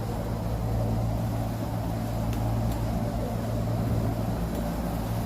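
Steady low mechanical hum, like a motor running, with no change in pitch or level.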